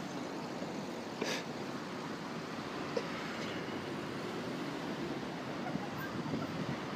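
Street traffic: cars driving slowly past at close range, a steady low rumble of engines and tyres, with a short hiss about a second in.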